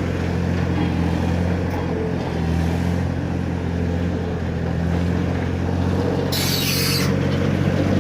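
AJAX 1000 concrete mixer's engine running steadily, with a short hiss about six seconds in lasting under a second.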